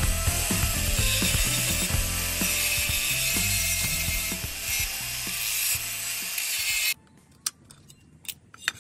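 Cordless angle grinder grinding rust off an old steel truck marker-light bracket, a harsh, steady grinding noise. It cuts off suddenly about seven seconds in, leaving only a few faint clicks.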